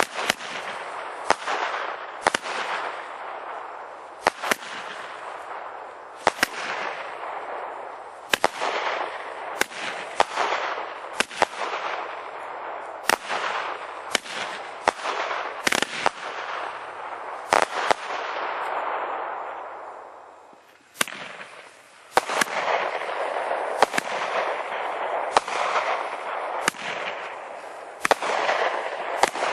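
Consumer aerial fireworks going off in a rapid series: sharp bangs about once a second over a continuous hiss. A short lull comes about two-thirds of the way through, then the bangs resume.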